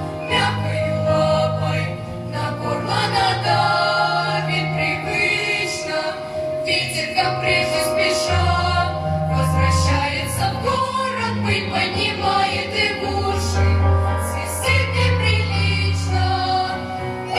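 Choir singing a song in Russian, with long held low notes underneath the voices.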